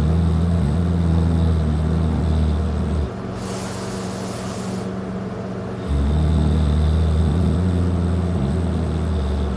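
A person passed out drunk, snoring loudly: a long, low snore, then a breathy hiss of air about three seconds in, then another long, low snore starting about six seconds in.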